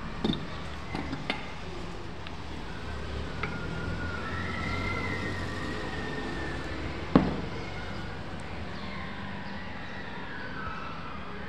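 A few sharp metal clicks and knocks of tools worked on an engine block while measuring piston-ring end gap, the loudest a single knock about seven seconds in. Behind them a siren wails, slowly rising and falling.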